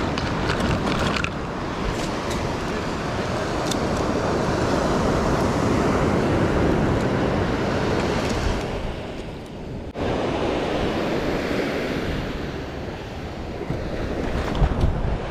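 Ocean surf breaking and washing up a sandy beach, with wind rumbling on the microphone. A few short clicks sound in the first few seconds.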